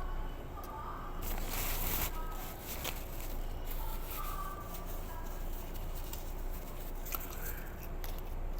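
Close-up eating noises: chewing and tearing into spicy fried chicken, with a short crackling crunch about a second and a half in and scattered small clicks.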